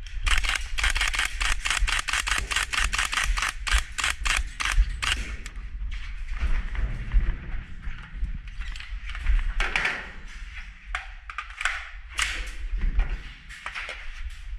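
Airsoft guns firing: a rapid string of shots, about five a second, for about five seconds, then scattered single shots and short volleys over a steady low rumble.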